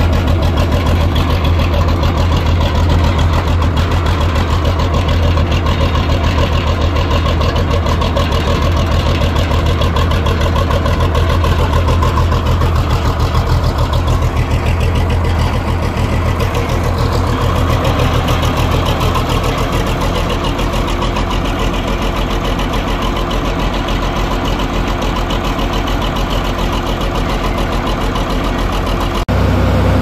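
Farm tractor engine running steadily at low speed, heard from the driver's seat, with a strong low hum and an even firing beat. A faint steady whine joins in about twenty seconds in.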